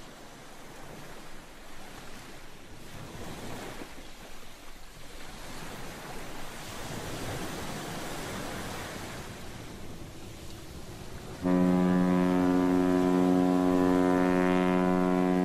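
Sea surf and wind building gradually, then a ship's horn starts suddenly about 11 seconds in and holds one long, steady low blast, louder than the surf.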